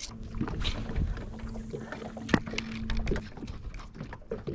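Fishing gear being handled on a boat deck: a run of small clicks and taps, with one sharp click a little past two seconds in. Underneath are water lapping against the hull and a steady hum that stops about three seconds in.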